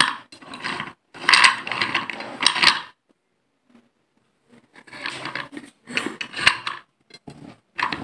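Crisp, dense clicking and crunching of slate pencils right at a handheld microphone, in two stretches with a pause of about a second and a half between them.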